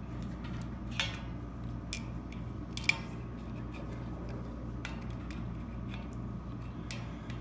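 Adjustable wrenches clicking against brass propane fittings as they are snugged tight on a key valve: a scatter of light metal ticks, with two sharper clicks about one and three seconds in, over a steady low hum.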